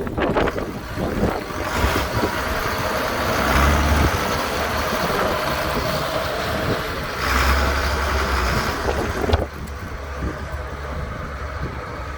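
Allis-Chalmers 7040 tractor's diesel engine running. It gets louder twice, then drops quieter after a sharp click about nine seconds in.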